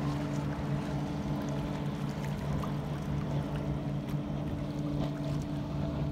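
Outboard motor of a small fishing boat running at speed, a steady drone, with water lapping and splashing underneath it.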